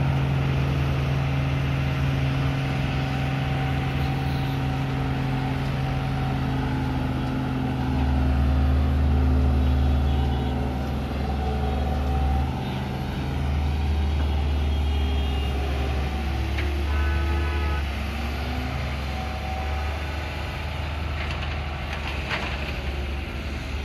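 Loaded ten-wheel dump truck's diesel engine running as the truck drives off over a muddy dirt track, a steady low drone that grows louder about eight seconds in and eases off slightly over the last few seconds. A brief high beeping tone sounds about seventeen seconds in.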